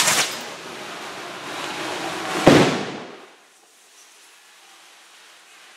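Two sharp explosive bangs about two and a half seconds apart, the second the louder, ringing out briefly before dying away to faint street noise.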